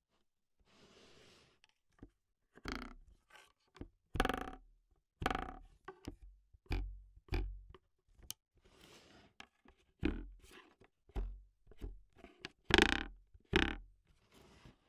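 Foley hits and scrapes with sticks, brushes, spoons or wires on hard surfaces, miked close with a contact mic. About fifteen short strokes come at irregular intervals, some with a dull low thump. A soft brushing swish comes first, and the loudest hit falls near the end.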